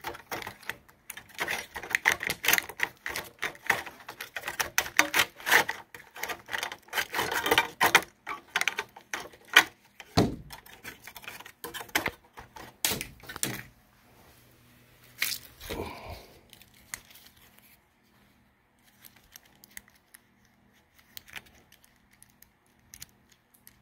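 Hands working a plastic interlock microswitch assembly off the metal bracket of a first-generation Prius hybrid battery: quick clicks, rattles and scrapes of plastic and metal for about the first fourteen seconds, then only a few faint clicks.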